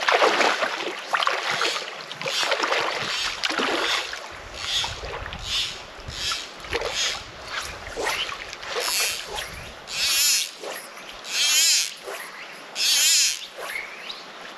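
River water splashing and sloshing in irregular bursts, as from wading over rocks in a shallow river: a dense run of splashes in the first few seconds, then separate splashes about a second apart, the last three the loudest.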